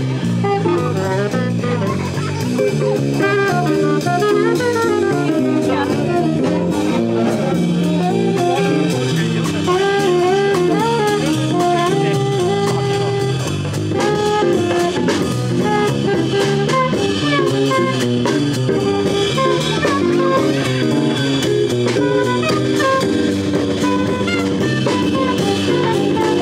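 Live small jazz combo playing: saxophone and semi-hollow electric guitar over a drum kit, with quick melodic note runs.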